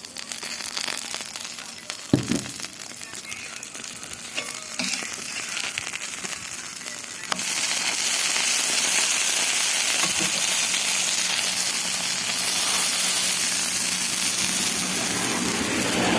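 Food frying and sizzling on a hot griddle, with a sharp knock about two seconds in. The sizzle jumps louder about seven seconds in and stays loud.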